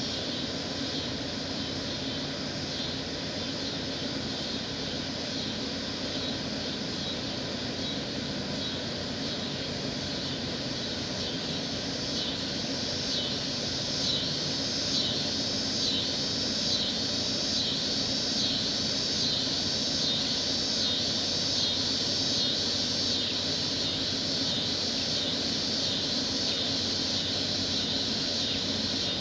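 Evening insect chorus pulsing in a steady rhythm about once a second, growing louder about ten seconds in, over a steady low hum.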